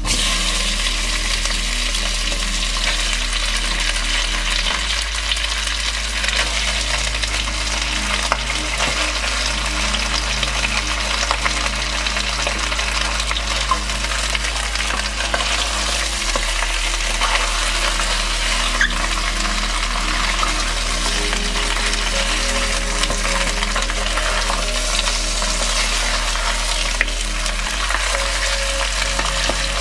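Chunks of chicken and pork sizzling and frying in hot oil in a stainless steel pressure-cooker pot, turned with a wooden spoon. The sizzle starts suddenly as the meat goes in and keeps on with an irregular crackle.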